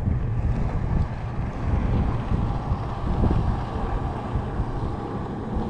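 Wind buffeting the microphone on an open boat on a lake: a steady low rumble with no distinct events.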